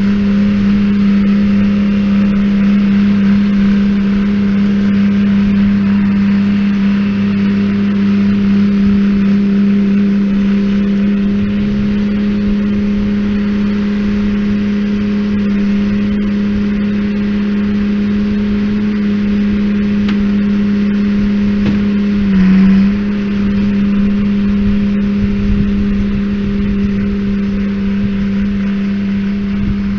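Tractor engine running steadily at a constant working speed, driving a hay baler. About three-quarters of the way through, its pitch dips briefly and it gets louder for a moment, as if the engine takes a brief extra load.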